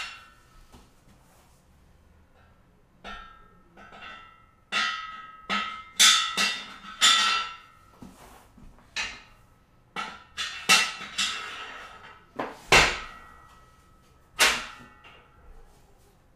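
Metal gym equipment clanking: about fifteen sharp, irregular knocks, several with a brief metallic ring after them. The strikes come thickest and loudest around the middle, with another hard one near the end.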